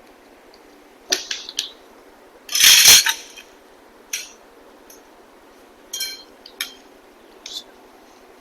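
Shoe rack poles and connector pieces clinking and clicking against each other as they are handled and fitted. A few light knocks about a second in, a louder clatter a little before three seconds, then scattered single clicks.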